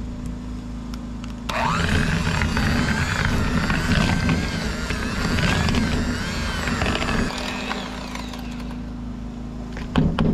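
Electric hand mixer whipping boiled potatoes and butter into mash: the motor starts with a rising whine about a second and a half in, runs with a wavering pitch as the beaters work through the potatoes, and stops about seven seconds in. A generator hums steadily underneath.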